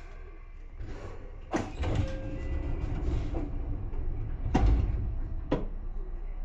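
Seibu 2000 series electric train heard from inside the car: a low running rumble that grows from about a second in, with three sharp clunks, about a second and a half in, about four and a half seconds in, and about five and a half seconds in.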